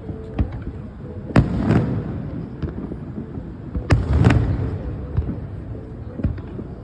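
Aerial fireworks bursting: two loud booms, about 1.5 and 4 seconds in, each followed by a quick second crack and a rumbling echo, with smaller distant pops between.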